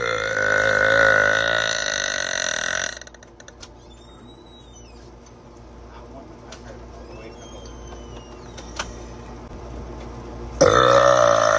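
A woman's long, loud burp with a wavering pitch, lasting about three seconds. After a quieter gap with a few faint clicks, another loud burp starts near the end.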